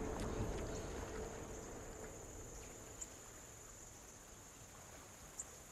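Faint woodland ambience: a steady, high-pitched insect drone over a low hush that fades away in the first two seconds or so, with a couple of tiny clicks.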